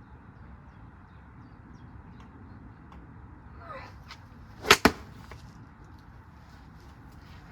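A short swish, then two sharp cracks in quick succession a little under five seconds in, over a faint steady background hiss.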